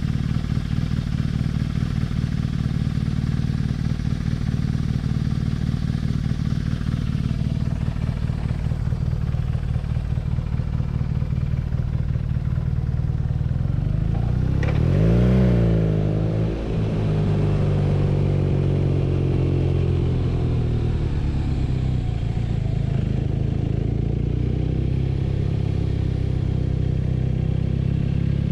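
BMW R nineT's 1170 cc boxer twin running with an even low beat, then revving about halfway through, its pitch rising and falling quickly. The engine then settles into a steady run under way.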